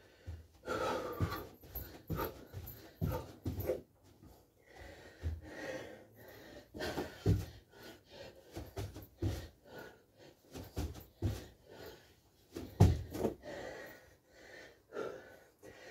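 A man breathing hard from exertion, with the thuds of his feet and body landing on a carpeted floor and exercise mat as he does jumping jacks, kick-outs and squats. The breaths and thuds are irregular, and the loudest thumps come about 7 and 13 seconds in.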